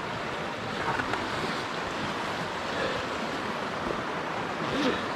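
River water rushing steadily over the stones of a small trout stream.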